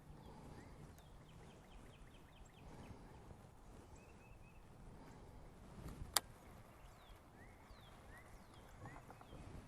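Quiet outdoor lake ambience with faint, scattered bird chirps and calls, and a low rumble underneath. One sharp click comes about six seconds in.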